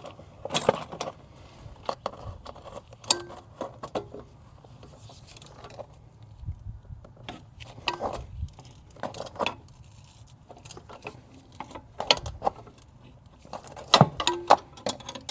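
Scattered metallic clinks and taps of a hand wrench working at a stubborn 13 mm turbo mounting bolt in an engine bay.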